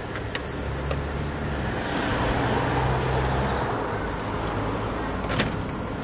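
A passing motor vehicle: engine hum and road noise swelling to a peak about two to three seconds in, then fading. Two light clicks from the plastic steering-column shroud being fitted, one near the start and one near the end.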